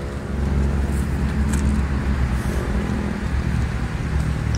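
Wind buffeting the microphone: a loud, low, uneven rumble.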